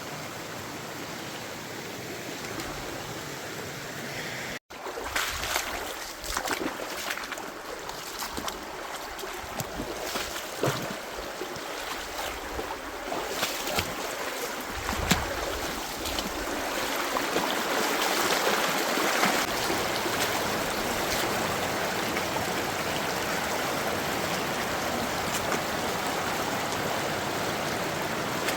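Rushing water from a stream or waterfall, a steady hiss. There is a break a little under five seconds in, then irregular splashes and a slightly fuller rush of water.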